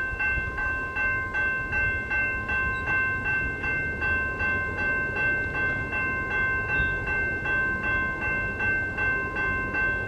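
Railroad crossing warning bell ringing in quick, evenly spaced dings while the crossing gates come down, the warning that a train is approaching.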